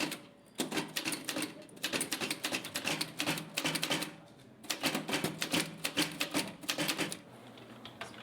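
Typewriter being typed on fast: rapid key strikes in two runs of a few seconds each, with a short pause between them, the typing stopping about a second before the end.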